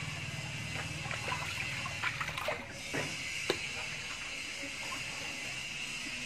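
Water running and splashing as a wet dog is washed by hand in a tub, with a few short sharp splashes or knocks between about two and three and a half seconds in.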